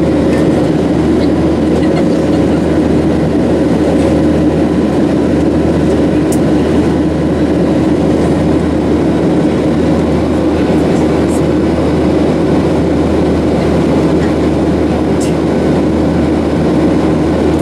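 Steady drone inside a Boeing 737's cabin in flight, from the engines and the air rushing past, holding even throughout.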